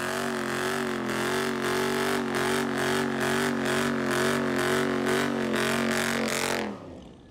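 A car doing a burnout: the engine is held at high revs with a slightly wavering pitch while the rear tyres spin and smoke. Near the end the revs fall away and the engine note drops off.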